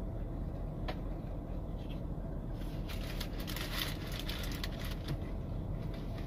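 Close-up chewing of a mouthful of food, with a run of fine crackly chewing sounds from about two and a half to five seconds in, over a steady low hum inside a car.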